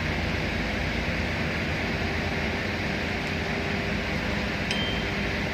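Steady background machinery hum with a constant rush of air-like noise. A brief faint high beep comes near the end.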